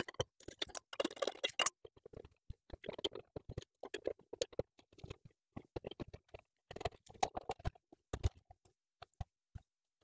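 Scattered light clicks, taps and scrapes from a ceiling light fixture being taken down by hand: the glass dome shade and the metal fixture base and its screws being handled.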